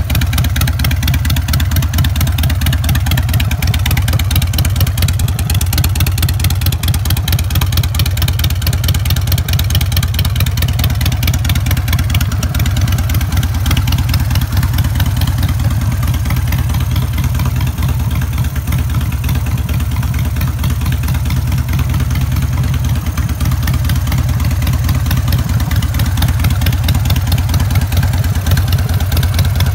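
2002 Harley-Davidson Sportster 883R's air-cooled V-twin idling steadily through aftermarket short shot exhaust pipes, a loud, even run of exhaust pulses.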